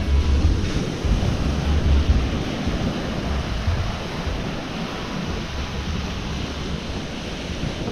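Ocean surf washing in, with wind buffeting the microphone, heaviest in the first couple of seconds.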